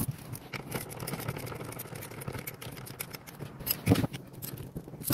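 Light, irregular clicking and handling noises from hand work on a car's steering wheel and column, with a louder knock about four seconds in.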